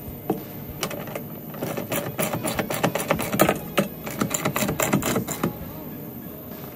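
Hand ratchet wrench clicking in quick bursts as it runs a nut onto a bolt of the mounting bracket, from about one and a half seconds in until near the end.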